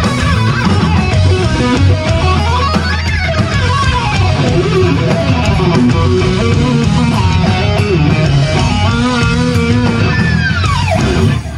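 Electric guitar playing fast lead runs, the notes climbing and falling quickly, in unison with a drum kit over a steady low bottom end. Near the end the guitar makes one long falling pitch dive.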